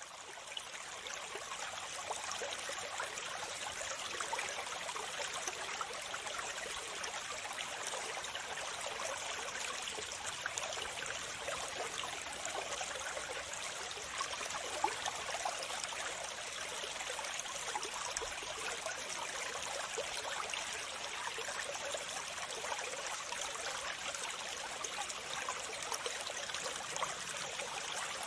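Water falling and splashing in a steady, continuous patter, fading in over the first couple of seconds.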